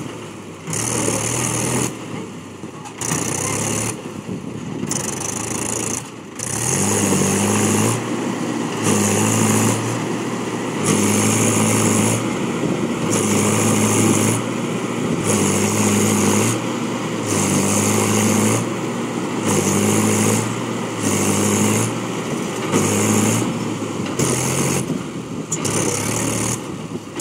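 Mahindra 415 XP tractor's diesel engine revving in repeated surges, one about every two seconds, as it strains to pull a stuck trolley.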